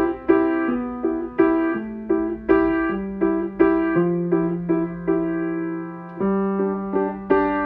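Piano music: a gentle melody of struck notes over a bass line that steps down, then rises again about six seconds in.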